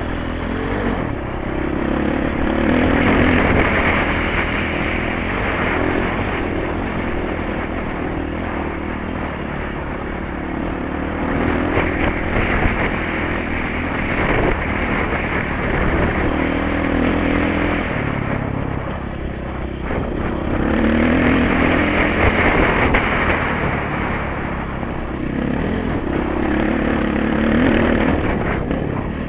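Dirt bike engine heard from the rider's helmet, revving up and dropping back again and again as the bike is ridden along a rough trail.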